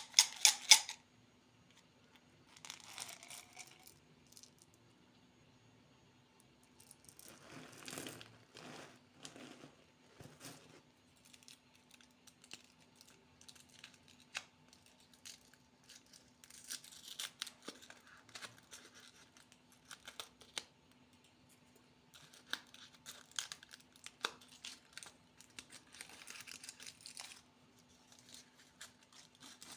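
Plastic candy wrappers being torn open and crinkled by hand, in irregular bursts with pauses between, the sharpest tearing right at the start. A faint steady low hum runs underneath.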